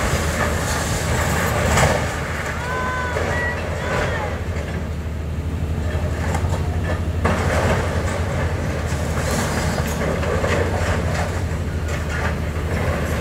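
Hitachi tracked excavator's diesel engine running steadily while its grab crunches and drags twisted metal and rubble, with scattered clanks and knocks.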